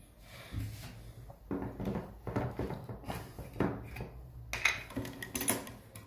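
Soft kitchen handling sounds: a run of light knocks and clinks of utensils and dishes, with a short gritty scraping patch near the end.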